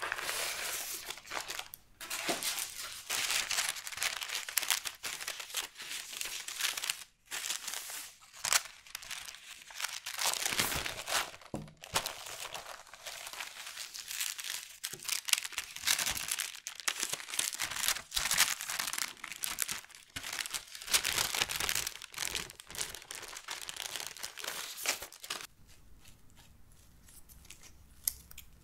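Baking parchment paper crinkling and rustling as it is handled and peeled off a freshly baked sponge sheet, in irregular bursts that stop near the end.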